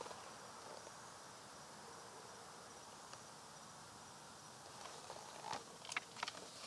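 Faint outdoor background with insects keeping up a steady high tone. A few soft rustles and taps of a hardcover picture book being handled come near the end.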